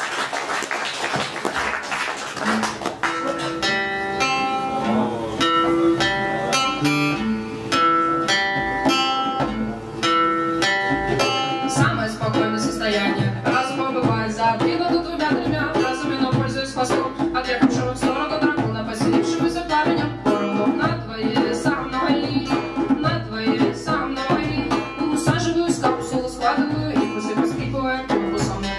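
Live acoustic guitar picking out single notes. A little over ten seconds in, hand drums join with a steady rhythm under the guitar.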